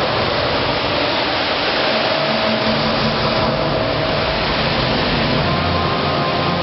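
Steady rushing water of a fountain's jets and cascades, with a few faint held tones underneath.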